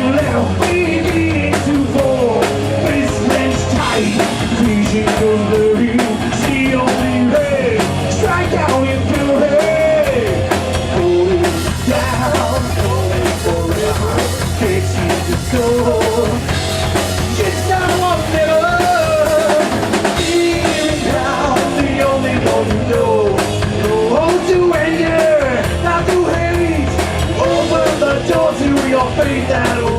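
A rock band playing live on drum kit, bass and electric guitars, with a melodic line bending up and down in pitch over the top. The cymbals get brighter and denser from about eleven seconds in until about twenty seconds.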